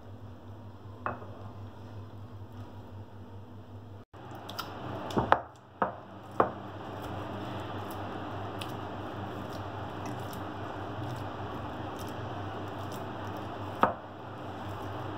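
Hands kneading a soft, sticky flour dough, with a squishing sound and a few sharp clicks, over a steady low hum.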